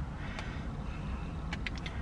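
Steady low rumble inside a car cabin, with a light click about half a second in and a quick run of three or four light clicks near the end, as the camera is handled.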